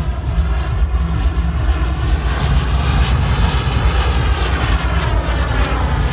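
JetCat P300 Pro turbine of a large model jet running continuously as the aircraft flies aerobatics. Its whine drifts slowly up and down in pitch over a steady rush.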